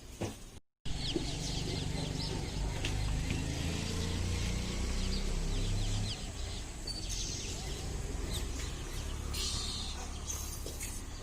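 Birds, plausibly chickens among them, chirping and calling rapidly over a low, steady background rumble, after a brief dropout just under a second in.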